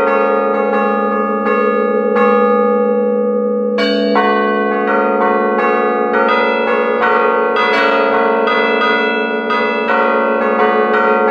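Bronze church bells hanging still in the bell chamber, struck in turn from a baton keyboard to play a quick rhythmic tune, about two or three strokes a second. Each stroke rings on into the next. A louder, brighter strike comes about four seconds in.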